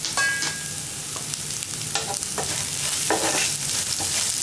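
Sliced onions, green chillies, ginger and garlic sizzling in oil in a non-stick frying pan. There is a brief ringing clink near the start, and from about two seconds in, a spatula stirs them with repeated short scraping strokes.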